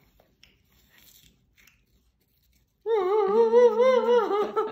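Nearly quiet at first, then about three seconds in a loud, long wavering vocal sound, high-pitched with a quick, regular wobble, joined by a lower steady tone underneath.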